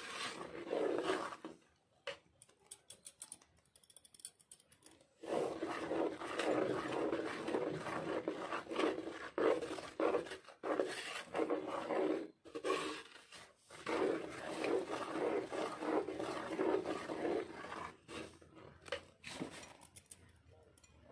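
Electric kitchen mixer grinder running, grinding peanuts and other dry ingredients. It stops for about three seconds near the start, then runs again in spells with a few short breaks.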